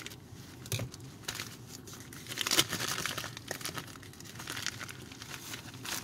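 Scissors snipping into a white plastic shipping bag, the packaging crinkling and rustling as it is cut and handled, loudest about halfway through.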